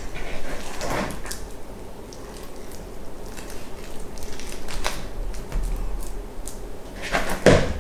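Hands scooping sticky meat-free sausage meat from a plastic bowl and pressing it onto a sheet of puff pastry on greaseproof paper: soft squashing and handling sounds with scattered light taps and knocks, and a louder bump near the end.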